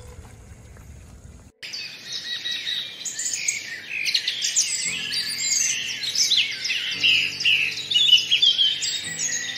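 Dense chorus of many small birds chirping and twittering, with rapid overlapping calls that start abruptly about one and a half seconds in.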